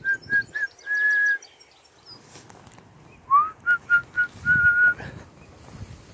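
A person whistling the same short phrase twice: three quick notes and then a longer held note. The second time it is a little lower and starts with an upward slide.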